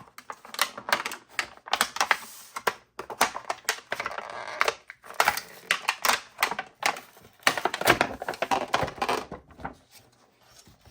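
Product packaging being opened by hand: an irregular run of sharp clicks and crackles with spells of rustling, falling quiet near the end.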